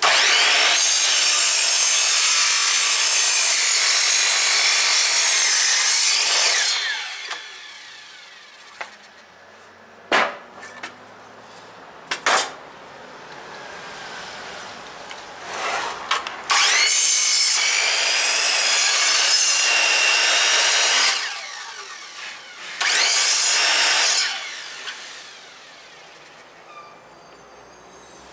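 AEG electric mitre saw (drop saw) cutting through a thick treated-pine sleeper: a loud spell of motor and blade in the wood of about seven seconds, a second of about five seconds, and a short third one near the end. A few sharp knocks come in the quieter gap between the cuts.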